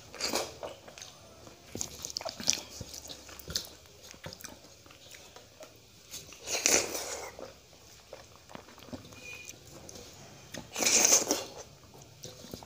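Close-up sounds of a man eating rice mixed with curd by hand: wet chewing and lip smacks, with two louder, longer mouth sounds, one about halfway through and one near the end.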